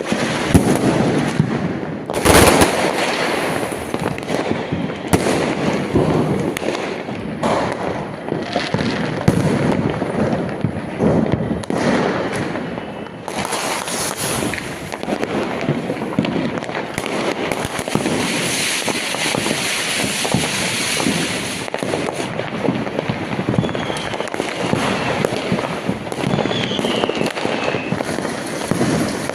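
Firecrackers and fireworks going off in a dense, continuous crackle of bangs, the loudest bang about two seconds in. A couple of short whistles sound late on.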